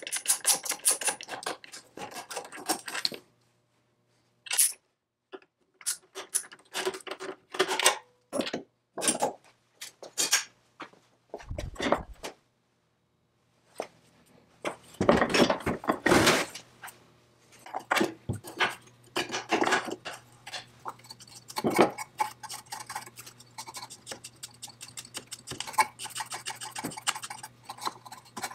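Wrench and metal parts clinking, knocking and scraping on a rusty chainsaw powerhead during disassembly: a run of short metallic clicks and rasps with brief pauses, and a couple of heavier thumps as the heavy powerhead is shifted.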